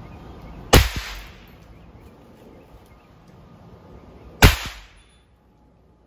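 Two hand-thrown throw-down firecrackers going off, one near the start and one about four seconds later: each a single sharp, very loud bang with a short echo after it.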